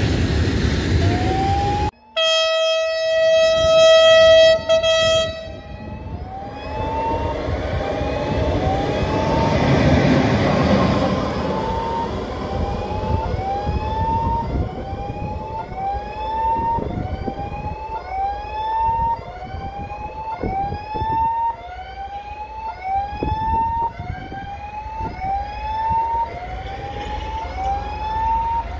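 Level-crossing warning signal sounding a rising electronic chirp, repeated a little faster than once a second. About two seconds in, a locomotive horn gives one long steady blast of about three seconds. After it a train rumbles through the crossing, with rhythmic knocks of wheels over the rail joints.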